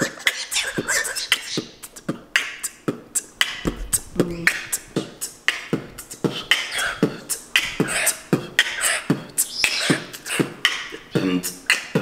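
Human beatboxing: a steady, fast rhythm of mouth-made percussion, deep kick sounds mixed with sharp clicks and hisses.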